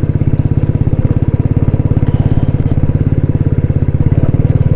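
Motorcycle engine running steadily with a fast, even beat as the bike is ridden over a rough gravel track.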